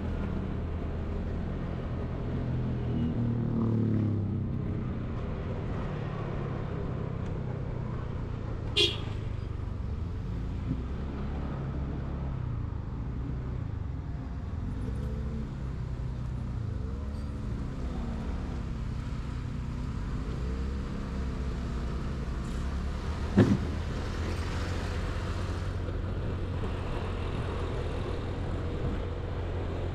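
Engine and road noise from a moving vehicle driving through light traffic: a steady low drone whose pitch rises and falls repeatedly in the middle. Two short sharp clicks stand out, about 9 seconds and 23 seconds in.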